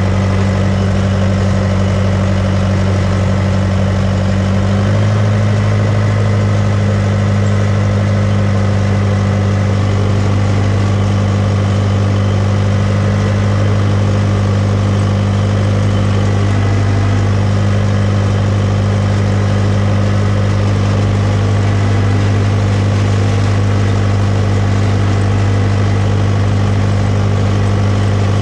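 Case 450C crawler dozer's diesel engine running steadily as the machine is driven. Its note steps up slightly about five seconds in and then holds.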